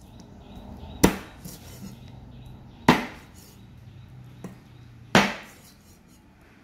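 Cleaver chopping frog meat on a thick round wooden chopping block: three heavy chops about two seconds apart, with a lighter tap between the second and third.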